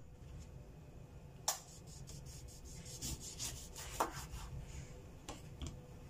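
Kitchen knife cutting a lemon on a plastic cutting board: a quick run of scraping strokes, with sharp knocks of the blade on the board, the loudest about four seconds in.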